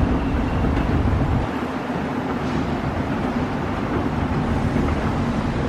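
Outdoor city ambience: a steady rumble of distant traffic, with wind buffeting the microphone.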